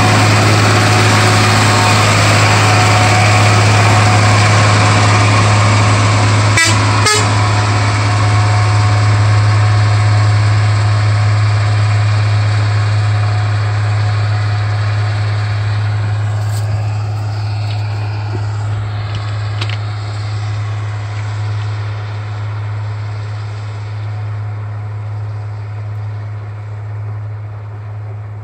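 Road-rail truck running away along the railway track, its engine and wheel noise fading steadily as it recedes. Two sharp clicks come about seven seconds in.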